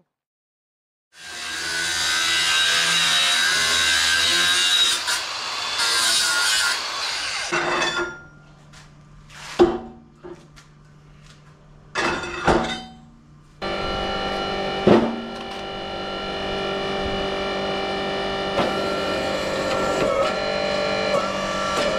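Angle grinder grinding steel, a loud dense grinding noise with a high whine lasting about six seconds. A few sharp metallic knocks follow, and then background music comes in for the rest.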